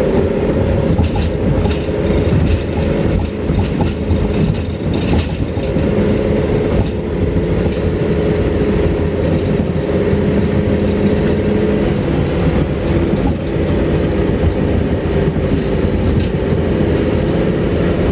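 A moving vehicle, heard as a loud steady hum with rattling over it.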